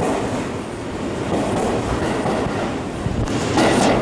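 Seibu Railway electric commuter train pulling out of the platform and running past, a steady rush of rolling noise that swells louder near the end.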